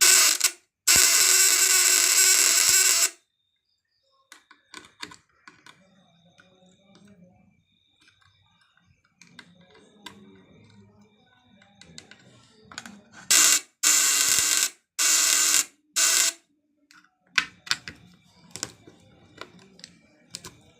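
Hand-wound transformer of a homemade SPS-type 12/24-volt inverter growling harshly in loud bursts as it is powered under load: one long burst of about two seconds near the start, then four short ones around the middle, with small clicks between. The builder puts the growl down to too little damping.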